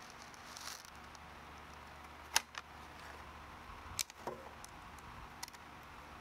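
A few sharp light clicks of small metal hardware being handled: a screw and an aluminium beam block tapping against each other and the plate. The loudest comes about two and a half seconds in and another at four seconds, over a faint steady room hum.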